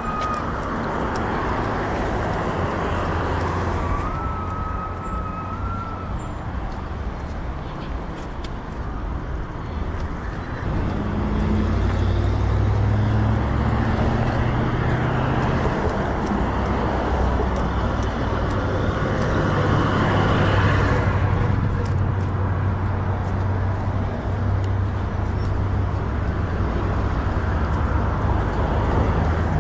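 Road traffic: motor vehicles passing on a multi-lane city street in a steady stream, with the low engine rumble growing heavier about a third of the way in.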